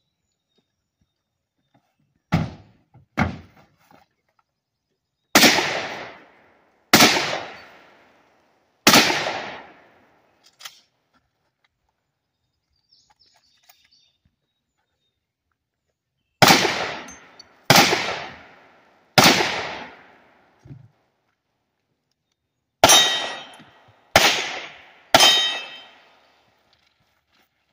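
Handgun shots fired in a practical-shooting string: eleven loud shots in small groups, each group spaced a second or so apart, with longer pauses between groups. The first two shots are duller than the rest.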